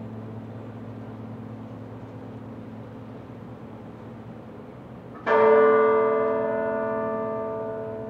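A large tower bell tolling a single stroke a little over five seconds in, then ringing on and slowly dying away. Before the stroke, the hum of the last toll still hangs in the air and fades.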